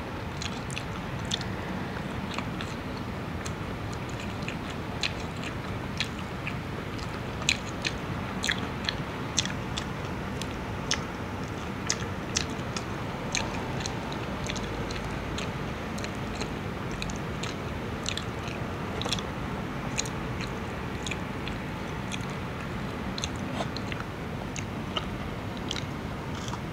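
Close-up eating sounds: chewing and many small crisp clicks as a battered fried fish is picked apart by hand and eaten, over a steady background hiss.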